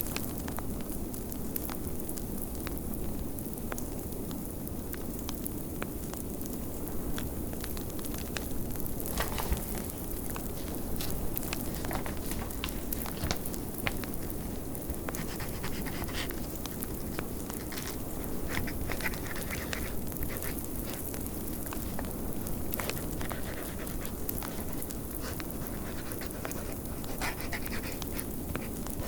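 Wood fire crackling, with scattered sharp pops, over a steady low rush of blizzard wind.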